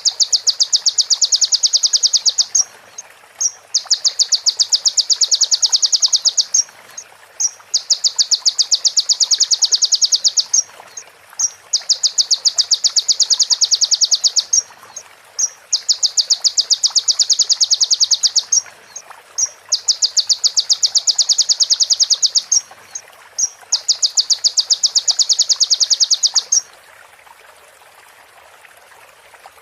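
Kolibri ninja sunbird singing a fast, high, rattling trill, repeated seven times with short pauses, the mimicked call of a female prenjak. A faint steady hiss underneath.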